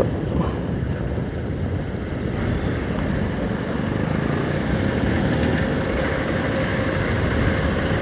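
Motorcycle riding along at a steady speed: the engine running under a steady rush of wind on the microphone.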